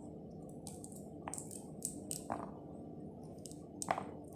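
Pomegranate being pried apart by hand: a handful of short, scattered crackles and squishes as rind and seeds are pulled loose, over a steady low hum.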